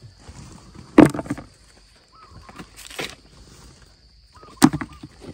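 Hard wild almond (Irvingia malayana) fruits dropped into a plastic bucket: two loud knocks, about a second in and near the end, and a lighter one in between.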